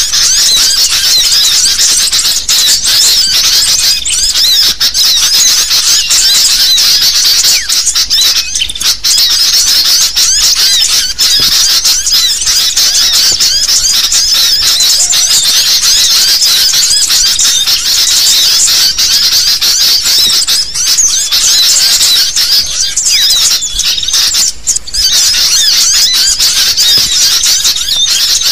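Bird-trapping lure recording: a dense chorus of agitated sooty-headed bulbul (kutilang) calls, many high-pitched chattering calls overlapping without a break.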